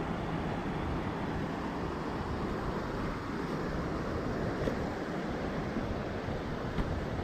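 Steady rushing of a river flowing close by, with a couple of faint ticks about two-thirds of the way in.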